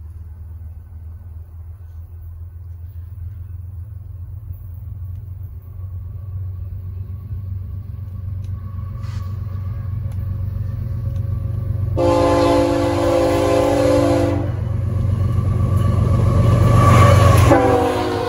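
Diesel freight locomotives approaching, their low engine rumble building steadily as they near. The lead locomotive's air horn sounds one long chord about twelve seconds in. It sounds again as the locomotives pass, its pitch dropping as they go by.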